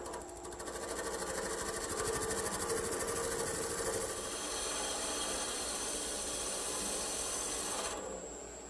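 Wood lathe spinning a blank while a turning chisel, held sideways on the tool rest, takes a shear cut: a steady hissing cut that stops sharply about eight seconds in, leaving the lathe running more quietly.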